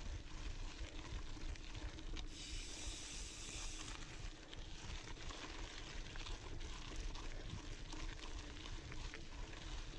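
Faint rolling noise of a mountain bike climbing slowly on a dry dirt trail: a steady low rumble and hiss of tyres on dirt and air on the camera. A brighter hiss runs for about a second and a half, starting some two seconds in.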